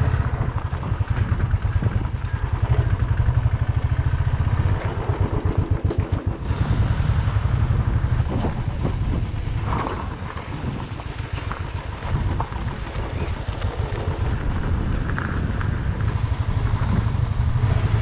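Royal Enfield 350 single-cylinder motorcycle engine running at low speed on a rough dirt track, a steady low pulsing beat with road and wind noise heard from the rider's seat.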